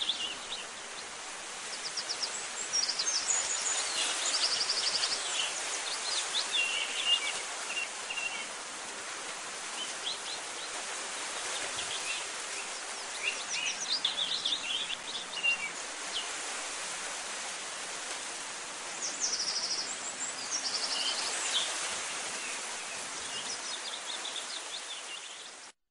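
Songbirds chirping and giving fast trills over a steady background hiss, a nature ambience track; it cuts off abruptly at the very end.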